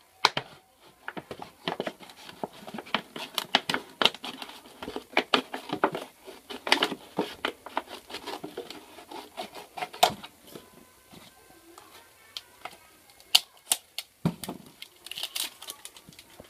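Scissors cutting through a thin plastic water bottle: quick crackling, crinkling snips of the plastic. After about ten seconds they thin out to a few scattered clicks, a low knock and a short crinkle as the bottle is handled.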